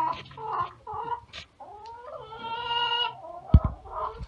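Domestic hens clucking in short repeated calls, with one longer drawn-out call about two seconds in. A single dull thump sounds a little after three and a half seconds.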